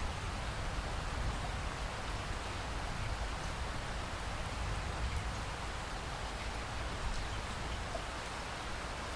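Steady rain falling, an even hiss with faint scattered drop ticks and a low rumble underneath.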